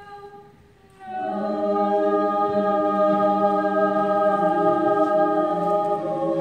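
High school mixed choir singing a soft, thin chord that swells into a loud, full chord about a second in and is then held for a long time.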